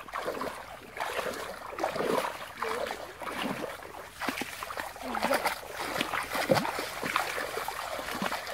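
A person wading on foot through shallow muddy water, with sloshing and splashing in irregular bursts as each leg moves through it.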